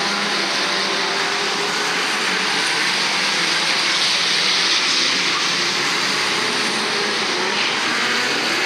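A pack of stock cars racing around an oval track: several engines running together in a steady loud din, their revs rising and falling.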